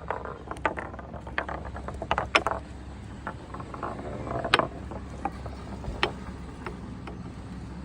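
Irregular clicks and knocks of wood against wood from a wooden ball project, over a steady low hum. The knocks are loudest a little over two seconds in and again about halfway through.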